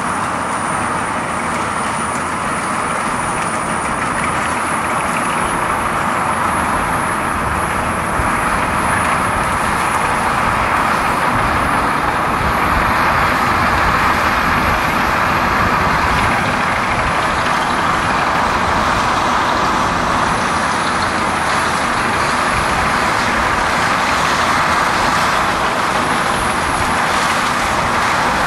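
Heavy machinery running steadily under load: a dense, noisy drone with a thin high whine above it, growing slightly louder about eight seconds in.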